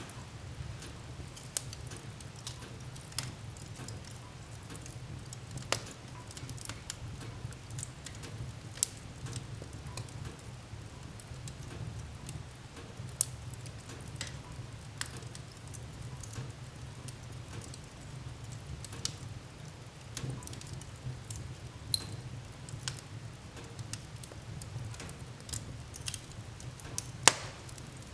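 Fire in a fireplace crackling, with irregular sharp pops scattered over a steady low rumble; one pop near the end is the loudest.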